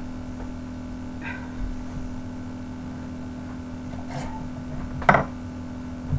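Handling noises as a soap loaf and a metal wire soap cutter are moved about on a table: a few soft rustles and one sharp knock about five seconds in, over a steady low hum.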